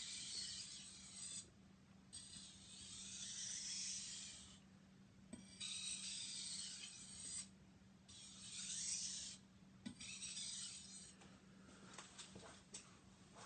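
Knife edge stropped on a wet 8000-grit finishing water stone: about five faint scraping strokes, each a second or two long with short pauses between, then a few light clicks near the end. A faint steady hum runs underneath.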